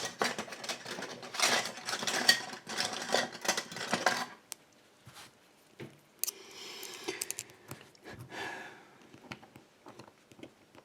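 Metal screwdrivers clattering and clinking against each other as they are rummaged through for about four seconds. After that come a few quieter clicks and a faint scraping.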